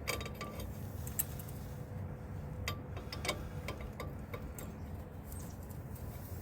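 Scattered light metallic clicks and ticks of a line wrench on a steel brake line fitting being worked loose, a few seconds apart and irregular, over a low steady hum.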